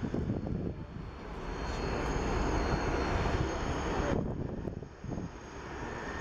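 An Airbus A330-300 airliner's twin jet engines at takeoff thrust during the takeoff roll: a steady rushing engine noise that swells over the first few seconds, then drops off sharply about four seconds in.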